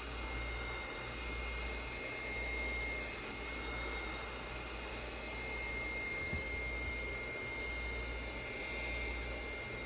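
Heat gun running steadily, its fan blowing hot air with a thin high whine, used to soften the back-glass adhesive.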